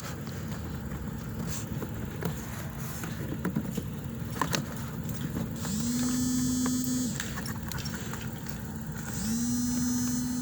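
A mobile phone vibrating for an incoming call: two buzzes of about a second and a half each, a few seconds apart, each spinning up quickly to a steady pitch. Light handling clicks come before them.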